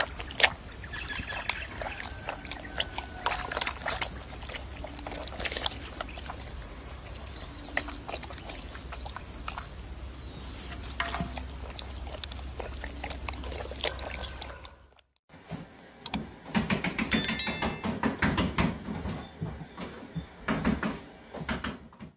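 A koala drinking from a pot of water, small lapping and splashing sounds over a steady low rumble. After a short break, knocks and a brief high electronic chirp from a cat game playing on a TV while a cat paws at the screen.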